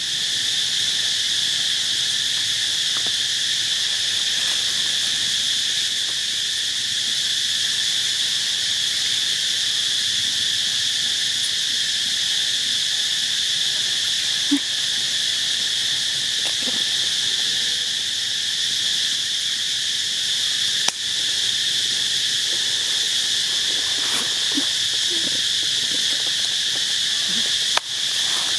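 Steady insect chorus, a continuous high-pitched buzzing drone that does not change. A few brief clicks stand out about fifteen and twenty-one seconds in and again near the end.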